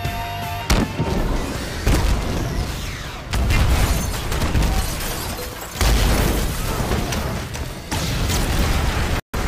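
A string of car explosions: about five sudden booms, each followed by a heavy rumble, with a film score playing underneath. The sound cuts out for a moment just before the end.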